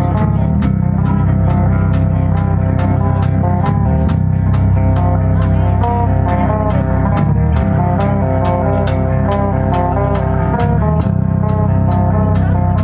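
A live metal band playing an instrumental passage: electric guitar and bass guitar riffing over drums, with cymbal strikes keeping a steady beat of about two to three a second.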